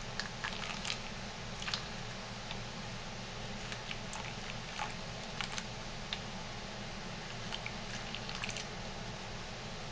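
Faint, scattered small clicks and taps from a plastic pouring container and funnel being handled over glass jars while thick lotion is poured, over a steady background hiss and hum.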